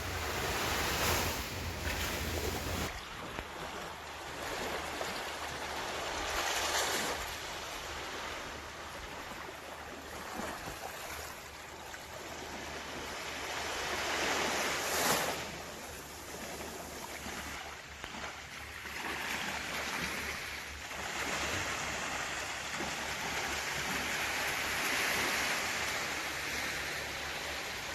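Ocean waves breaking and washing on the shore, swelling and falling every few seconds, with the loudest break about fifteen seconds in.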